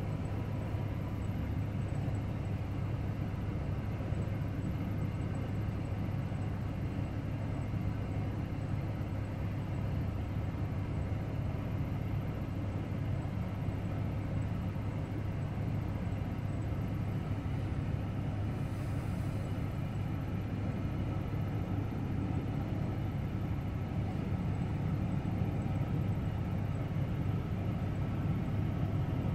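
A steady low engine rumble with a constant hum, growing slightly louder near the end.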